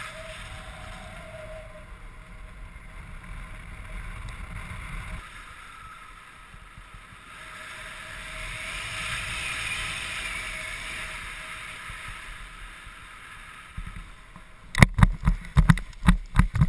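Wind rushing over the microphone of a paraglider pilot's camera during flight and descent, swelling and easing. Near the end come loud thumps at about three a second: the pilot's running steps on touchdown jolting the camera.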